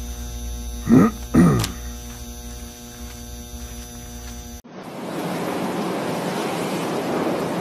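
A steady electrical hum, broken about a second in by two quick sounds that fall sharply in pitch. It cuts off abruptly and gives way to a steady noisy hiss of room or background noise.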